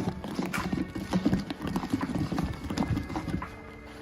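Thickening liquid soap mixture being stirred by hand in a bucket. The stirrer knocks and scrapes against the sides in quick, irregular clacks that thin out near the end.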